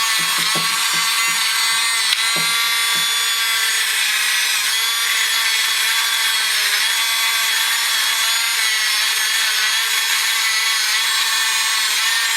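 Dremel rotary tool running steadily against the metal body of a Stanley No. 113 circular plane, cleaning rust from the tight places, with a high, continuous motor whine and the scrubbing noise of the tool on the metal.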